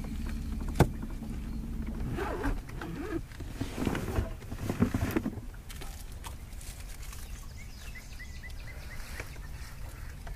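Open-air ambience on a fishing boat: a low rumble of wind on the microphone, a sharp click about a second in, muffled knocks and rustles in the middle, and a quick run of six or so short high chirps later on.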